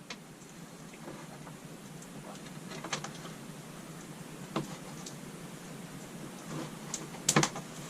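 Faint hand-work sounds as wire ends are handled and marked with electrical tape: light crackle and rustle, with a few sharp clicks about three seconds in, midway, and a quick pair near the end.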